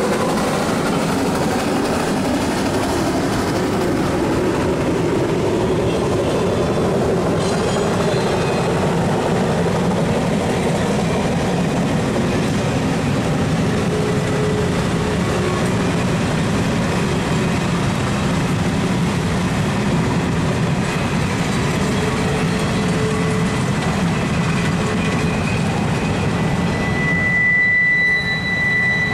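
Open-sided passenger cars and a caboose rolling past on the rails, a steady rumble and rattle of wheels on track. Near the end a high, steady squeal of wheels on the rail rises above it for about a second and a half.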